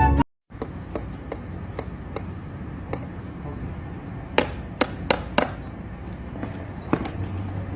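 Sharp taps and knocks over a steady background hiss. There are a few light ticks in the first three seconds, then four louder knocks in quick succession around the middle.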